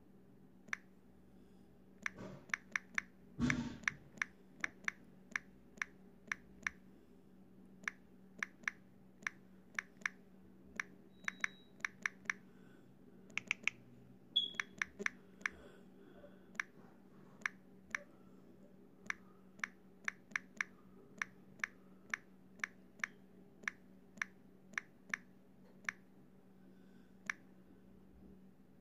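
Sharp clicks, often two or three a second and sometimes spaced out, over a steady low electrical-sounding hum, with a dull thump about three and a half seconds in.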